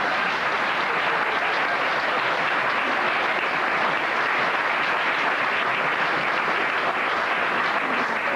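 Live theatre audience applauding steadily.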